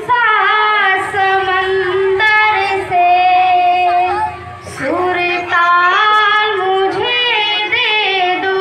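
A girl singing solo into a microphone, holding long notes and sliding between pitches, with a brief break for breath about four and a half seconds in.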